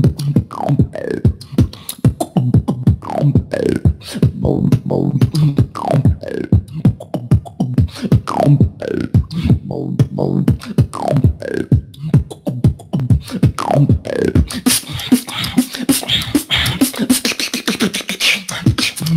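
Solo beatboxing: a fast beat of mouth-made kick and snare clicks, with a falling, swooping bass sound every second or so over a low hummed bass. About 15 seconds in, the hum drops out and the pattern turns denser and hissier.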